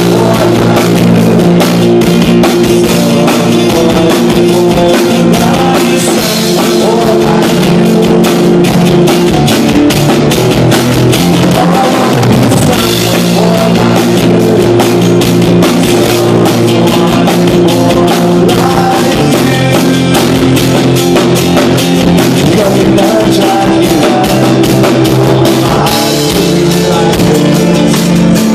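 Rock band playing live: acoustic guitar, electric bass and a drum kit, with the drums hitting constantly under sustained guitar and bass chords.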